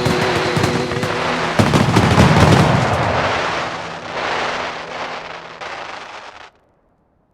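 Fireworks crackling and popping in a rapid, dense volley, with a louder burst about one and a half seconds in, then fading and cutting off suddenly near the end.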